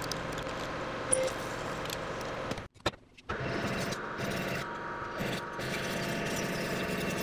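Emco V13 manual lathe running, its spindle turning an aluminium block while a twist drill fed from the tailstock drills into it, a steady machine sound with a faint hum. It drops out abruptly to near silence for about half a second near the three-second mark, then runs on as before.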